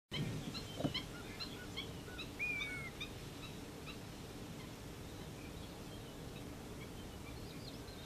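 Several birds calling with short chirps at a range of pitches, thick in the first three seconds with one longer whistled note that drops at its end about two and a half seconds in, then fainter and sparser, over a steady low background noise. A soft low thump comes just under a second in.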